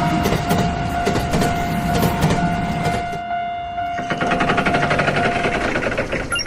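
Train sound effect: a train passing with a long steady tone over it and a fast, even clattering rattle that fades out near the end.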